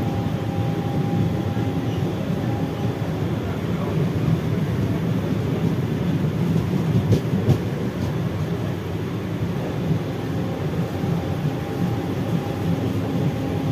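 Mumbai suburban EMU local train running at speed, heard from on board: a steady rumble of wheels on rail with a few short clicks. A faint steady tone sits over it for the first few seconds and again near the end.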